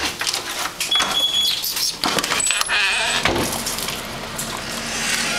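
Young American pit bull puppy whining and yelping in short, high cries, among clicks and knocks from the camera being handled.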